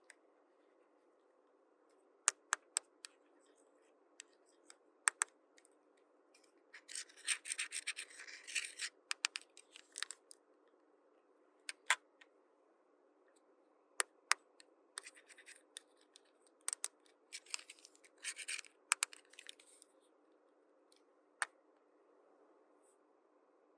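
Small plastic toy pieces being handled: scattered sharp clicks and taps, with two stretches of scratchy rubbing and rustling.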